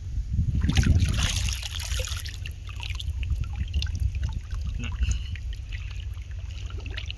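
Shallow seawater splashing and trickling around a giant trevally held in the water by hand as it is revived for release, with a burst of splashing about a second in and scattered drips after, under a steady low rumble.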